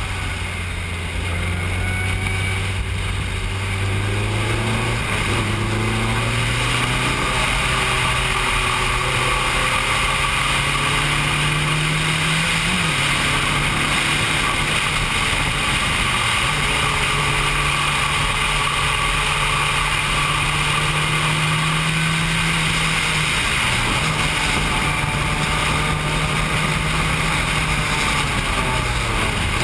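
Formula 3 single-seater's engine heard from the cockpit under hard driving, its pitch climbing and then dropping sharply at each gear change, with several shifts through the lap. Steady wind and road rush sits under the engine note.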